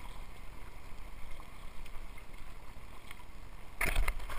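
Steady wash of choppy sea water around a paddled sea kayak's hull. A louder rumbling noise breaks in near the end.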